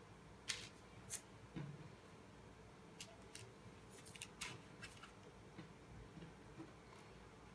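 Faint, scattered light taps and parchment-paper crinkles as soft dough buns are set down on a paper-lined metal baking tray, a few short clicks in the first half and quieter after.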